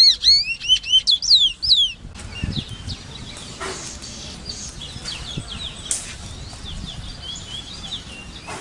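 Large-billed seed-finch (Sporophila crassirostris) singing a fast string of rising and falling whistled notes, loud for about two seconds. It then breaks off sharply into a fainter stretch of similar song over a low hiss.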